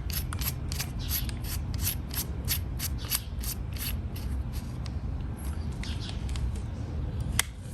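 Small metal parts of a hand rivet tool being handled and fitted: a regular run of light clicks, about three or four a second, fading out after about four seconds, then one sharp click near the end.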